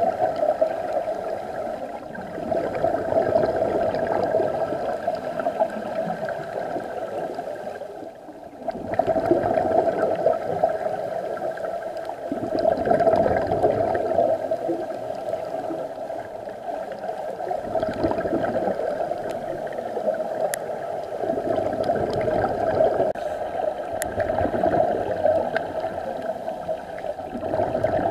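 Underwater scuba-dive audio: bubbling and gurgling from divers' exhaled breath swells and falls away every few seconds over a steady hum.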